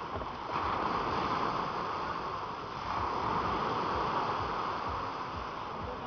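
Sea surf breaking on a pebble beach, a continuous wash of waves that swells and eases.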